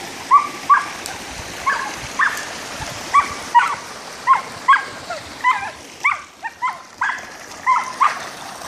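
Australian Shepherd barking repeatedly in short, high barks, often two in quick succession, about sixteen in all.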